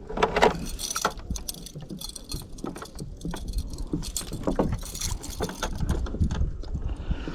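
Irregular clicks, knocks and light rattles of gear and fish being handled aboard a kayak, over a steady low rumble.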